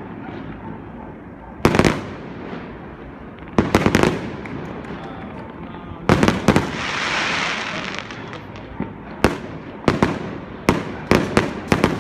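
Aerial fireworks shells bursting with sharp bangs that trail off. The bangs come a couple of seconds apart at first, with a hissing crackle after the bursts about six seconds in, then come in quicker succession near the end.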